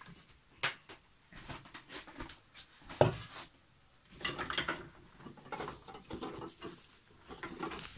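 Handling noise from a phone being passed and moved about: rubbing, scattered clicks and knocks, with one sharp knock about three seconds in.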